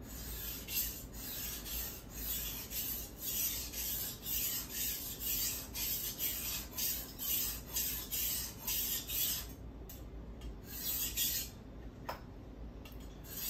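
Kitchen knife blade stroked back and forth on a water-wetted whetstone: a rhythmic rasping at about two strokes a second, pausing about two-thirds of the way through and again near the end.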